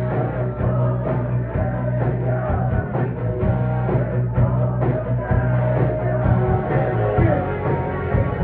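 Live rock band playing: drum kit, electric guitars and bass, with a singer.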